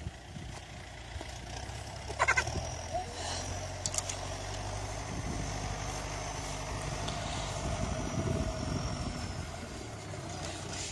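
A vehicle engine running steadily, its hum growing somewhat stronger in the middle. A brief high cry about two seconds in.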